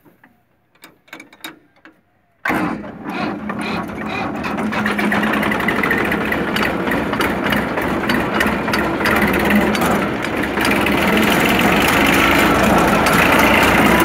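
A few faint clicks, then about two and a half seconds in a Massey Ferguson tractor and the Dasmesh paddy thresher it drives through the PTO shaft start up suddenly. The machine noise grows steadily louder over the next several seconds as the thresher comes up to speed.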